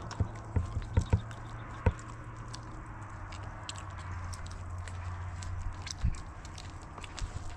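Dough being kneaded by hand in a plastic bowl, with scattered sharp knocks and clicks, several in the first two seconds and another about six seconds in, over a low steady hum.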